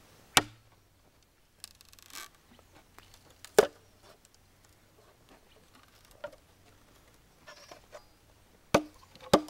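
Machete blade chopping into a green bamboo culm: four sharp strikes several seconds apart, the last two close together near the end, with fainter rustling and a lighter knock between them.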